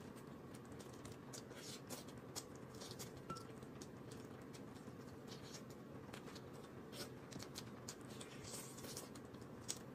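Faint eating sounds: a person chewing and pulling apart a piece of cooked meat by hand, with scattered soft mouth clicks and smacks.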